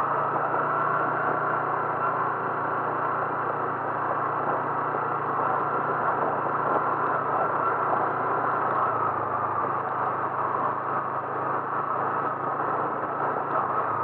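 Steady drone of a vehicle engine with road noise, unchanging throughout.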